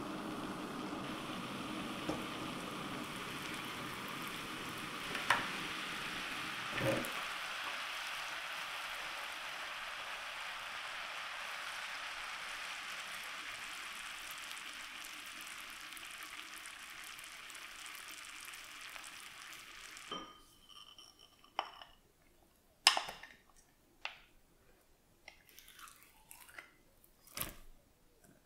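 Sugar syrup boiling in a nonstick pan, a steady bubbling hiss that fades and stops about two-thirds of the way through. A few sharp knocks and clinks of kitchenware follow near the end.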